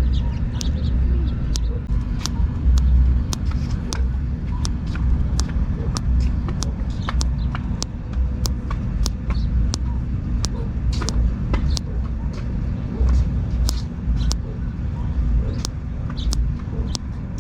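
Thumb joint cracking and popping: sharp clicks, about two a second, over a steady low rumble.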